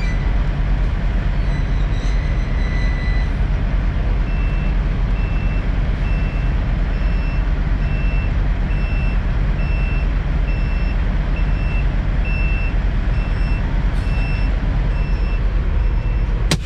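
Semi truck's diesel engine running with a low, steady rumble while backing into a tight space. A reversing alarm beeps steadily, about three beeps every two seconds, from about four seconds in. A short sharp burst of hiss comes right at the end.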